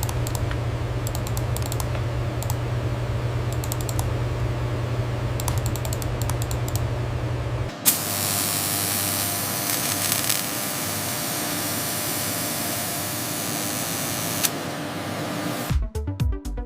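Factory machinery: a steady low hum with short runs of rapid clicking, then an abrupt change about halfway through to a steady hiss like air or spray. Music with a steady beat comes in near the end.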